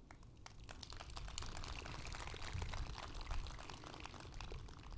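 Audience applauding, fairly faint: a dense patter of claps that builds about half a second in and thins out toward the end.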